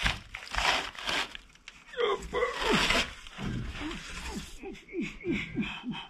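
Old wooden window frame being wrenched out of a brick wall opening: crunching and scraping of wood and crumbling mortar, then a run of short sounds falling in pitch, about three a second, as it is forced loose.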